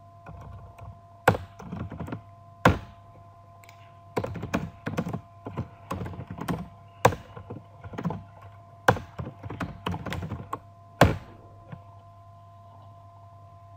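Computer keyboard typing in irregular runs of keystrokes, with a few sharper, louder key strikes among them. The typing stops about two seconds before the end, leaving a faint steady hum.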